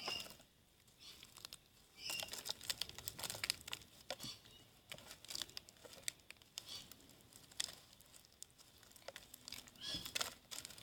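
Sequins crinkling and pattering as they are added and worked into PVA glue slime: a faint, irregular run of small light crackles and clicks.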